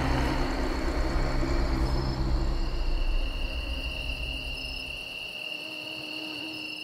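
Logo sound effect: a low rumbling drone fades away over about five seconds, while from about two and a half seconds in a steady high whine like a mosquito buzzing comes in and holds.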